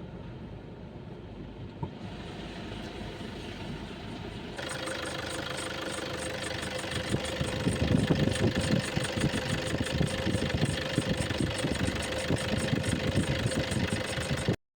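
Car engine running with noise from a bad alternator pulley. About four and a half seconds in it gets louder, with a steady whine and a rapid, even ticking, and it cuts off suddenly near the end.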